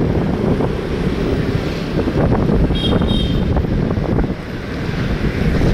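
Heavy wind buffeting the microphone over a steady low rumble, with a brief high double beep about three seconds in.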